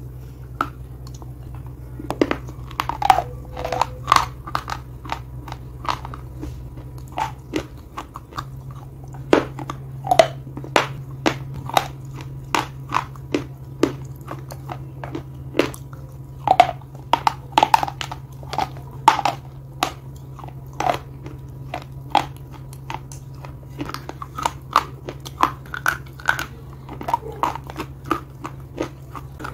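Close-miked biting and chewing of hard slate pieces: many sharp, dry crunches in quick succession. A steady low hum runs underneath.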